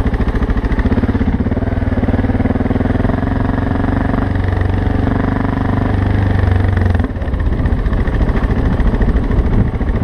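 BMW G650GS single-cylinder engine running under way, a dense even pulse of firing strokes; about seven seconds in, the engine note drops off sharply and then runs on unevenly.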